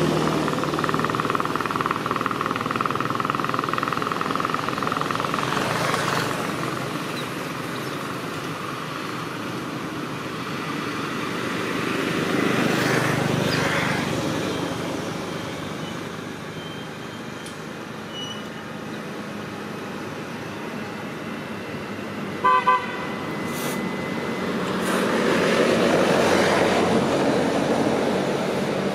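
Motor traffic passing on a nearby road, rising and fading as vehicles go by. A vehicle horn gives two quick toots about three-quarters of the way through.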